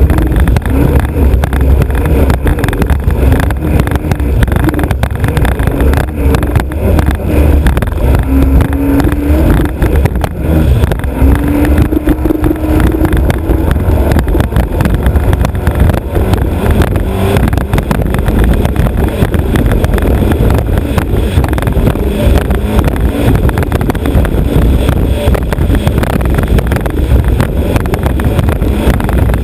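Alfa Romeo Autodelta 2.5 V6 of a vintage racer hydroplane running under way, heard from the bow over a heavy low rush. Its note wavers, climbs about ten seconds in, then sinks back into the steady rumble.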